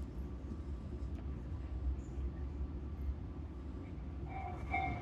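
Steady low running rumble inside a moving commuter train car. Near the end, an electronic chime of repeated two-tone notes starts, the signal that comes before an onboard automated announcement.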